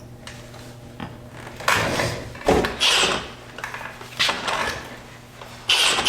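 Handling noises: a few short bursts of rustling and knocking over a low steady hum, the loudest about two to three seconds in and again near the end.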